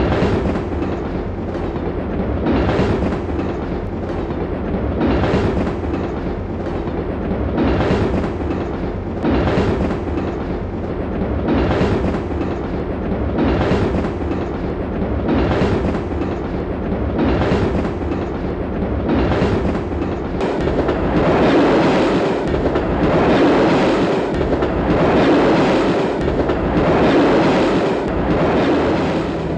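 A train running on rails, a steady rumbling rush with a regular surge of clatter about every second and a half, as wheels pass over rail joints. The noise grows louder and more continuous over the last several seconds.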